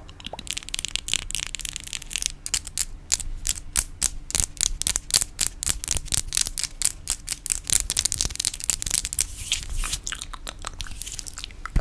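Fingernails tapping in fast, crisp clicks, several a second, with a dry, crunchy edge.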